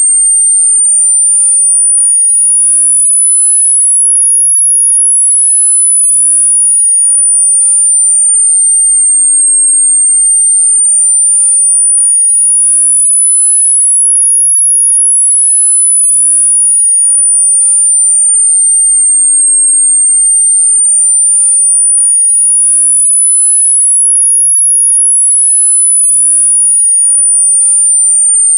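Synthetic tinnitus-masking tone: a single very high-pitched pure tone slowly gliding up and down in a smooth sweep, rising and falling about once every ten seconds, steady and loud.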